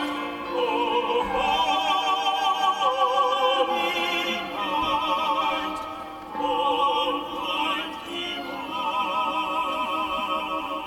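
Music: operatic-style singing in long held notes with a wide vibrato, phrase after phrase, fading somewhat near the end.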